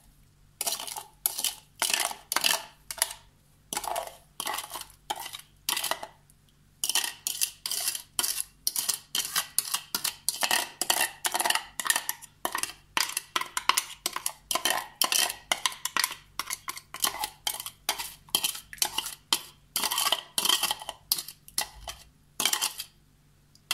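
Metal spoon scraping and knocking against a plastic food-processor bowl as it scoops out blended lemon and orange purée. The strokes come quickly, two or three a second, with a short pause about six seconds in.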